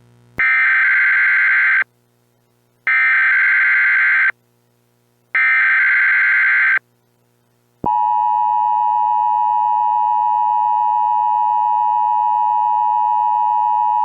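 Emergency Alert System tones: three bursts of the SAME digital header, each about a second and a half long with a short gap between, then the steady two-tone EAS attention signal starting about eight seconds in.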